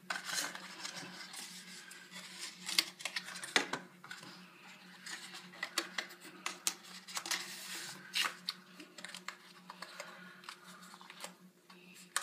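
Smartphone box packaging handled up close: paper leaflets and cardboard rustling and sliding, with scattered sharp clicks and taps. The loudest taps come about three seconds in.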